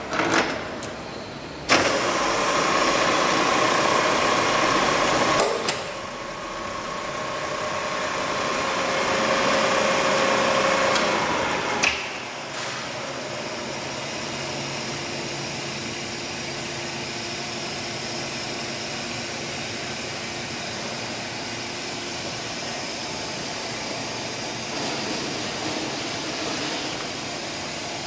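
Summit radial drill running with a steady gear whine. Sharp clicks come about two, five and twelve seconds in, and the running sound changes at each as the controls are worked. After the last click it runs quieter and steady to the end.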